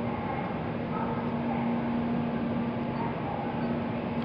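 N700A Shinkansen train pulling out of the platform at low speed: steady running noise with a constant low hum as its end car and nose glide past.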